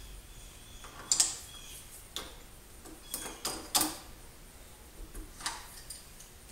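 Metal clinks and knocks as a small metal block is set in a milling-machine vise and the vise handle is worked to clamp it: about half a dozen sharp taps, each with a short metallic ring.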